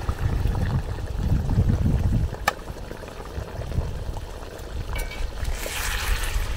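Cooking liquid sloshing and trickling as vegetables are scooped out of a large pan of broth, with one sharp clink of the utensil about two and a half seconds in and a hissing splash near the end.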